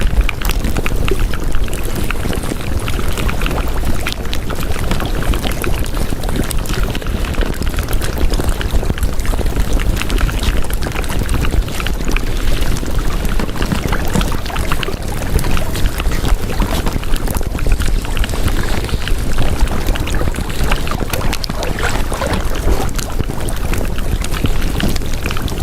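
Steady, loud rushing noise full of fine crackles, like pouring or running water, used as the masking background sound of a subliminal audio track.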